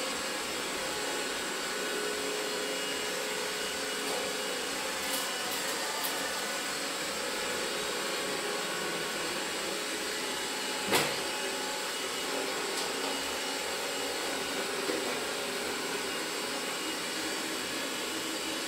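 Roborock S5 Max robot vacuum running steadily, a continuous motor whir, with one short sharp knock about eleven seconds in.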